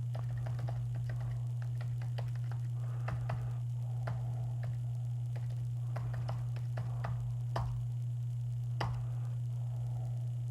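Computer keyboard being typed on: irregular, scattered key clicks, some in quick runs, a few louder strokes. A steady low hum runs underneath throughout.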